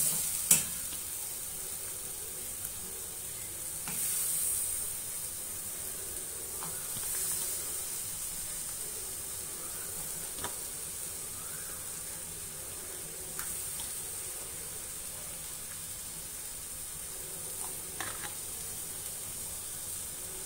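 Spiced masala sizzling in a kadai as raw goat lung pieces go in, with brief louder swells of frying about four and seven seconds in. A few sharp clicks of the metal slotted spoon against the pan.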